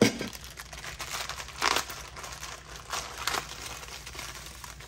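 A thin metal collectible soda can knocks down onto a table at the start, then plastic packaging crinkles in short bursts, once a little under two seconds in and twice around three seconds in, as a figure is unwrapped.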